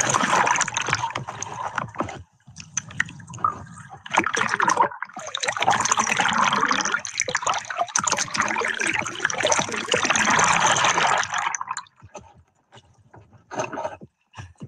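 Seawater sloshing and splashing around a camera held at the surface, with gurgling as it dips under the water in long noisy surges. Near the end this gives way to a few short, separate clicks.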